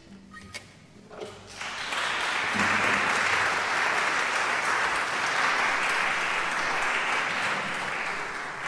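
Audience applauding: a few soft knocks, then clapping that sets in about a second and a half in, holds steady and dies away near the end.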